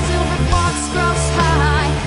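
Music: a song with a steady low bass and a wavering lead melody line.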